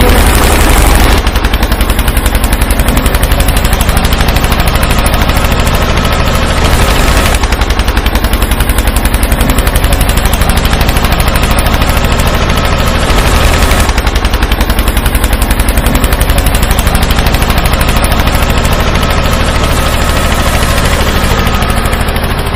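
Small toy DC motor on a homemade mini tractor driving a belt-driven homemade water pump, running with a loud, rapid, steady clatter.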